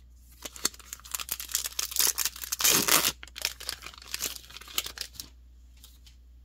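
Foil wrapper of a Magic: The Gathering booster pack being torn open and crinkled: a dense run of tearing and crinkling, loudest about halfway through, that stops after about five seconds.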